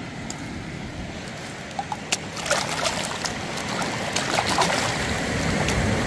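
Shallow muddy water sloshing and trickling as a hand stirs it and lifts a plastic action figure out, with scattered small clicks and splashes; it grows louder in the second half.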